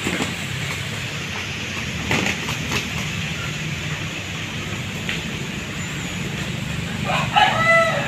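Two roosters fighting, with a few brief scuffs about two seconds in over a steady low rumble and hiss. Near the end a rooster gives a short call.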